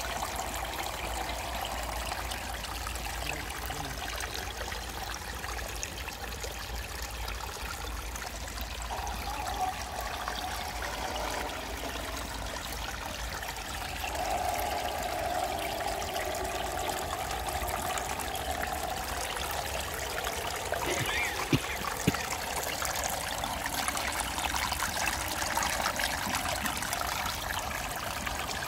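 Small stream trickling steadily over a rocky step into a shallow pool, with two short knocks about three-quarters of the way through.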